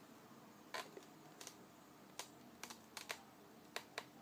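Light, irregular clicks and taps of fingers handling a cardboard airsoft-pistol box, faint and scattered.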